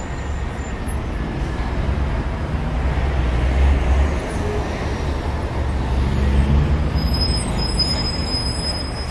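Road traffic noise: a steady low rumble and hiss that swells about four seconds in and again a little later.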